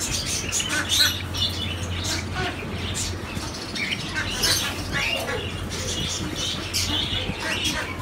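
Java sparrows in a cage giving many short, sharp chirping calls in quick succession. A low steady hum runs underneath.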